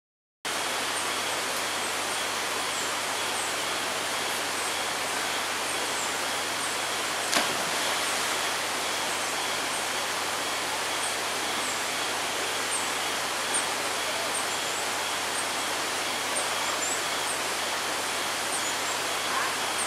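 Steady rushing of flowing water, starting abruptly half a second in, with short high bird chirps every second or so and a single sharp click about seven seconds in.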